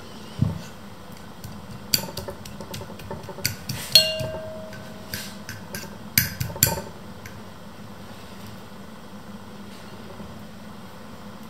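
Metal fork clinking and scraping against a ceramic bowl while mashing. There is an irregular run of clinks over the first seven seconds or so; the loudest strike comes about four seconds in and leaves the bowl ringing briefly.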